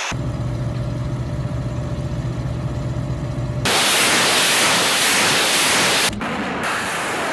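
Heavy vehicle engine running with a low hum. About three and a half seconds in it gives way abruptly to a loud, steady rushing roar, which cuts off sharply after about two and a half seconds into a quieter hiss.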